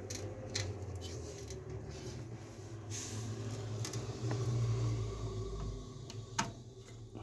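Plastic clicks and rustling as power supply cables and their connectors are handled and plugged into a motherboard, with a few sharp clicks over a steady low hum.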